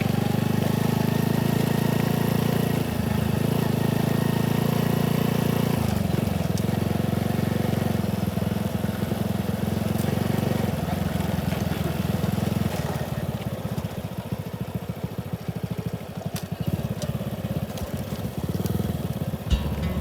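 Motorcycle engine running while riding, with a steady note that shifts a few times. In the last several seconds it turns quieter and more uneven.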